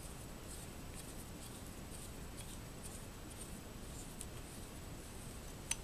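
Faint scratching and light metal ticks of a Winchester Model 70 rifle bolt being handled as its firing pin assembly is fitted back into the bolt body, with one sharper click near the end.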